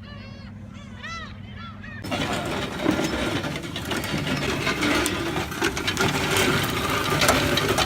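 Geese honking in repeated arched calls over a steady low hum. About two seconds in, this cuts abruptly to a louder, dense engine noise with rushing and crackle.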